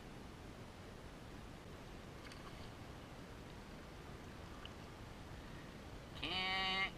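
Faint steady background noise with a couple of faint ticks, then near the end a loud drawn-out vocal call held at one steady pitch for under a second.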